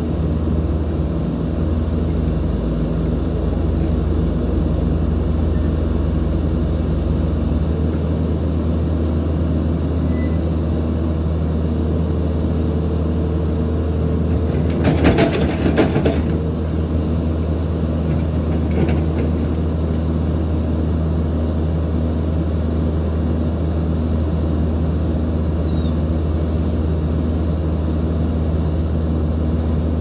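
Heavy-equipment diesel engine running at a steady speed, with a brief cluster of sharp knocks about halfway through.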